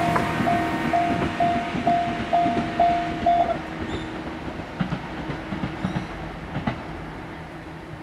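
Japanese railway level-crossing warning bell ringing about twice a second, then stopping about three and a half seconds in once the train has cleared, over the fading rumble of the departing train. A few short knocks follow as the crossing barrier arms lift.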